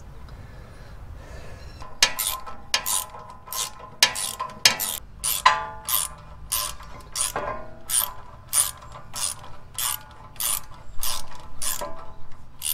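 Socket ratchet clicking in a steady rhythm, about two clicks a second from about two seconds in, as the 17 mm front brake caliper mounting bolts are backed out by hand.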